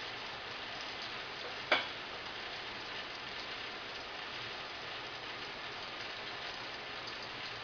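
Hot cooking oil sizzling steadily in a small frying pot, with one sharp click about two seconds in.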